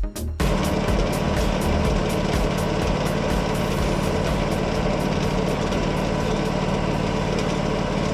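Wood-Mizer LT40 Hydraulic sawmill's engine running at a steady speed, coming in abruptly about half a second in.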